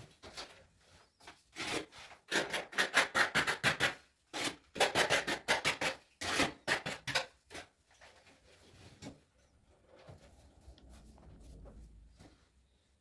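A steel hand trowel scraping and spreading tile adhesive across the back of a porcelain wall tile in quick, repeated strokes, several a second. The strokes stop about seven seconds in, leaving only faint handling of the tile.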